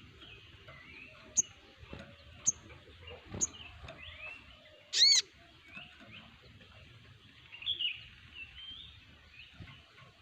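Several crimson sunbirds calling together. There are sharp high chips a few times, a loud short call about five seconds in, and many softer twittering notes between.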